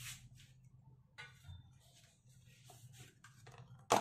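Faint clicks and handling rustles over a low steady hum, then one sharp knock near the end, as a spice container is set down on the granite worktop.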